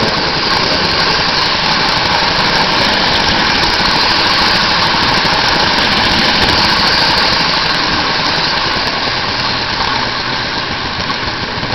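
Marx tinplate toy train running on three-rail tubular track, heard close up from a camera riding on one of its cars: a steady, loud rumble and clatter of the wheels on the metal rails and the motor's hum, easing off slightly toward the end.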